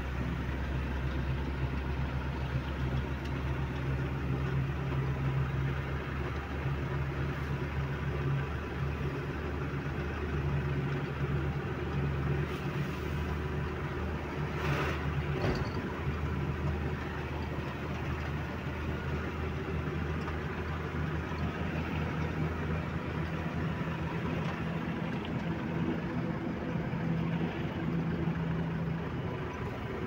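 Tata 2518 Ex truck's diesel engine running steadily while the truck drives along the road, heard from inside the cab, with a brief knock a little past halfway.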